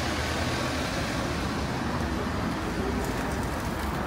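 Van driving past close by, its engine running over the steady noise of street traffic.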